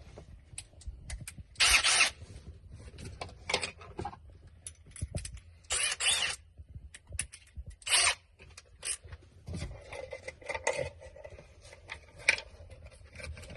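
Hands handling tools and small hardware: scattered clicks and light rattles, with three short, louder rasping scrapes.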